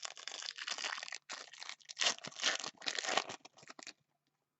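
Crinkling of a foil trading-card pack wrapper being handled, a dense crackle for about four seconds that then stops.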